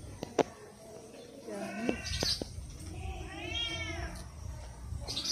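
A cat meowing twice: a short falling meow about one and a half seconds in, then a longer one that rises and falls a little past the three-second mark. A few sharp clicks come between them, the loudest near the start.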